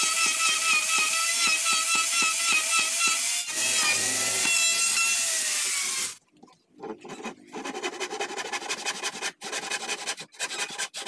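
Handheld electric router running steadily as it cuts along the edge of a wooden board, with a high whine and rapid ticking from the bit. About halfway through its pitch sags and falls as it winds down, then cuts off. After that, wooden boards knock and scrape as they are handled.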